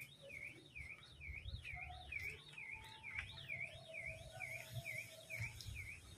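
A continuous high whistle sliding up and down in pitch about twice a second, over a faint low rumble.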